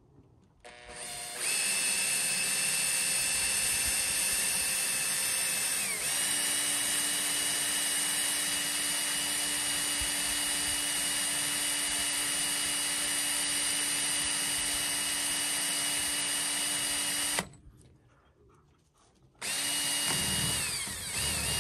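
Cordless 18-volt drill running under load as it bores a small hole through a pickup truck's sheet-metal roof: a steady motor whine that dips in pitch once as the bit bites. It runs for about sixteen seconds, stops, then starts again about two seconds later.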